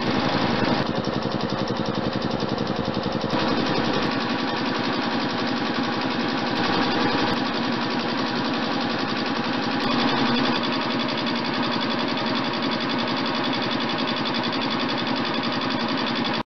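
1953 Ingersoll-Rand 10T three-cylinder, two-stage air compressor, belt-driven by a 15 HP single-phase electric motor, running steadily with a rapid, even pulsing, cutting off suddenly at the very end.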